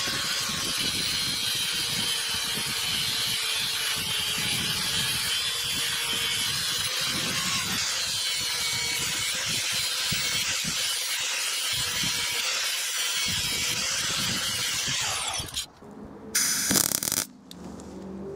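A metalworking tool running steadily on the throttle pedal's steel shaft and round-stock extension for about fifteen seconds, then stopping abruptly, followed by a brief second burst.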